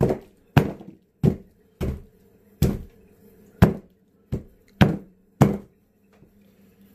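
Hatchet chopping frozen minced beef on a log-round chopping block: about nine sharp blows, a little over one a second, stopping about a second and a half before the end.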